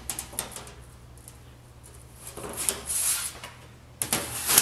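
A thin aluminum sheet panel flexing and scraping as it is handled and slid into the rolls of a slip roller. A few sharp clicks come first, then a longer rising scrape in the middle, and a loud sharp rattle near the end.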